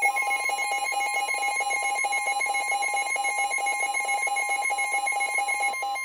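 NOAA Weather Radio alert tones: a fast pulsing electronic alarm beep, with a steady pure warning tone coming in just after the start. Together they announce an incoming severe thunderstorm warning.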